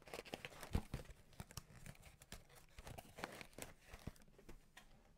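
Crinkling and rustling of a plastic cereal bag being handled, in a run of irregular crackles.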